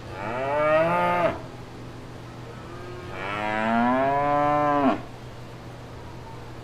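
Cows mooing: two moos, a short one of about a second, then a longer one of about two seconds, each rising and then falling off sharply, over a steady low background hum.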